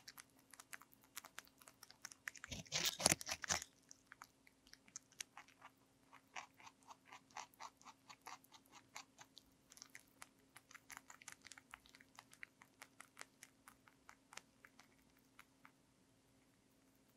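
A lionhead–Dutch mix rabbit biting into a whole raw cucumber, with a cluster of loud crunches about three seconds in. It then chews quickly in small, even crunching clicks that thin out and fade near the end.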